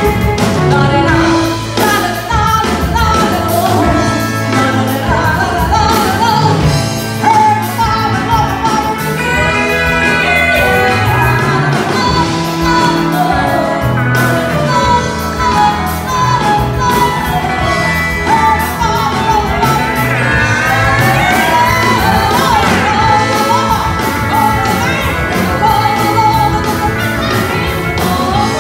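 Live band playing, with a woman singing lead over electric guitars, bass guitar and a drum kit, heard through the hall's sound system in a large room.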